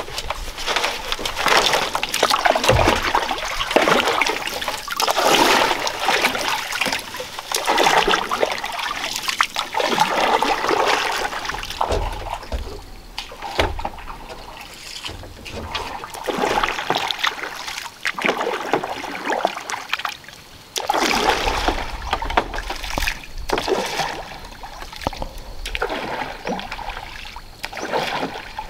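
Water splashing and sloshing in surges every two or three seconds as a bamboo raft is poled through the water.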